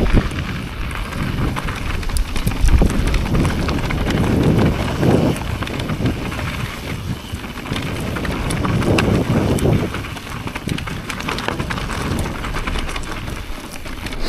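Mountain bike tyres rolling fast downhill over loose gravel and dirt trail: a steady crunching rush, with scattered clicks and knocks as the bike runs over bumps. Wind rumble on the microphone swells at times.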